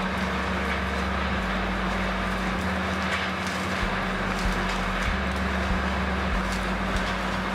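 Heavy forestry machine running steadily, its engine giving a constant low drone under broad mechanical noise, with scattered light ticks and clanks.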